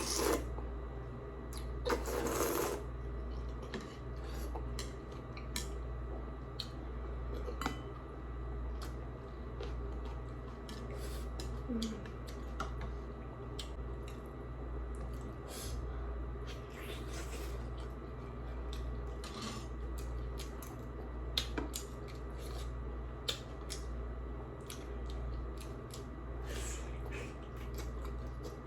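Mukbang eating sounds: utensils clicking and tapping on a bowl, with chewing and a few slurps of thukpa noodle soup, the strongest slurp about two seconds in. Under it runs the steady low hum of an air conditioner.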